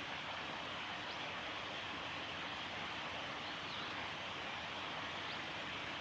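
Steady rush of flowing river water, with a few faint, thin high bird chirps scattered through it.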